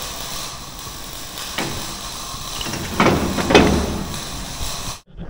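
A few short knocks and clunks over a steady background hiss. The sound cuts off abruptly near the end.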